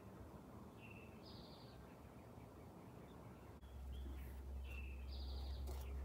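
Faint bird calls outdoors: a short two-part call, a lower note followed by a higher buzzy one, heard twice about four seconds apart. About halfway through, a click is followed by a steady low rumble.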